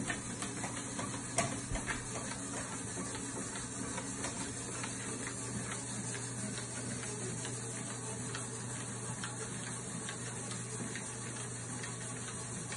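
Treadmill running with a steady motor hum and belt hiss, a dog's paws padding on the moving belt as faint ticks, and one sharper click about a second and a half in.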